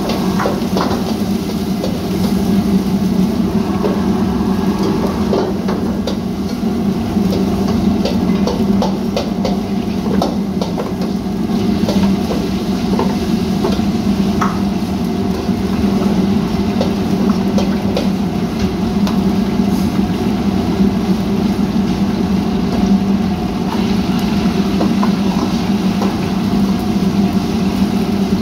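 Wok range in a commercial kitchen: a steady hum and rush from the gas burners, with frequent clanks and scrapes of metal ladles against woks and food sizzling in the woks.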